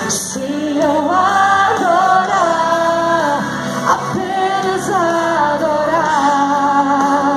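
A woman singing a worship song into a microphone over sustained instrumental backing chords.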